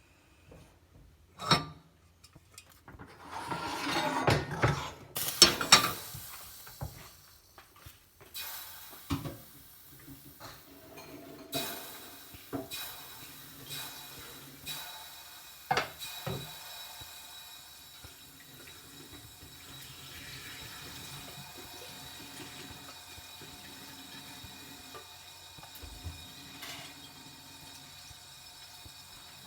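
Kitchen sink and cookware: water splashing and running with pots and dishes knocking and clattering, busiest in the first half, then a steady hiss of running water.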